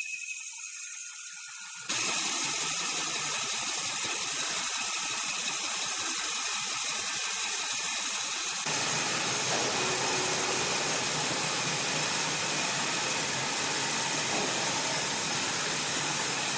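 Sawmill machinery running: a steady even mechanical noise that starts abruptly about two seconds in and grows fuller and deeper about eight seconds later.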